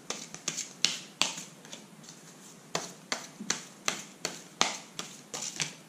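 A deck of tarot cards being shuffled by hand: a string of sharp card snaps, about two or three a second, with a short pause near the middle.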